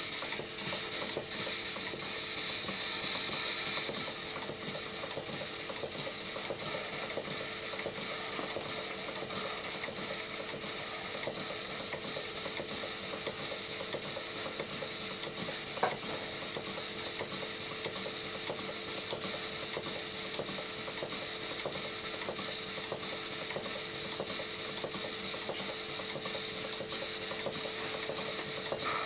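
Southworth 12-inch steam pump running on compressed air: its pistons and valve gear clatter in a steady, even rhythm over a constant hiss.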